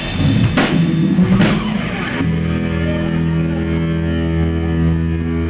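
Live rock band with drums and distorted electric guitar: two big drum and cymbal hits in the first second and a half, then a distorted guitar chord held and ringing steadily from about two seconds in, as at the close of a song.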